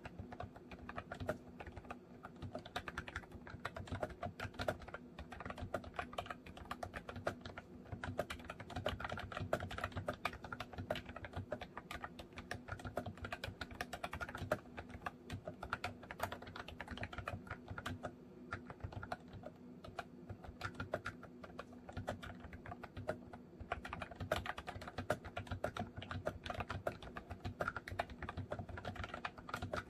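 Continuous fast typing on a MOFii Retro Candy keyboard, its round retro-style keys clicking in quick uneven runs with brief pauses.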